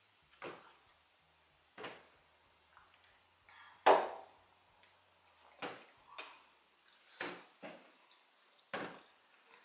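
A series of about eight short knocks and clinks at a table. The loudest, just before four seconds in, is a drinking glass set down on a wooden tabletop.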